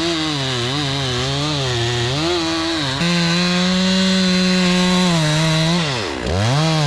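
Engine of a remote-controlled Carlton stump grinder running hard as the cutter wheel grinds out roots, its pitch wavering up and down under load. About three seconds in it settles into a steadier, louder note; near the end the revs sag deeply as the wheel bites in, then climb back.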